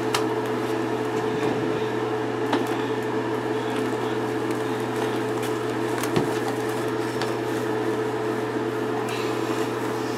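Steady machine-like hum with one held tone over it, with faint squishing and rubbing of hands working lather into a wet dog's coat and a few light knocks.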